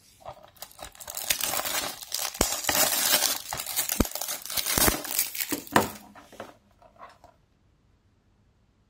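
Clear plastic shrink-wrap crinkling and tearing as it is pulled off a DVD case, with a few sharp clicks among the rustle. It stops about seven seconds in.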